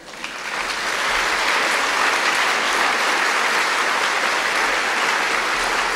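Audience applauding at the end of a talk, swelling over the first second and then holding steady.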